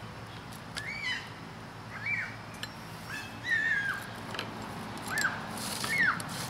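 An animal's short whistle-like calls, each rising then falling in pitch, about five of them roughly a second apart, one near the middle longer and flatter. A few faint clicks come in between.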